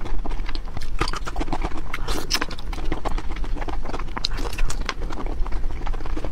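Close-miked chewing of raw marinated shrimp: a dense run of wet mouth clicks and smacks, irregular and continuous.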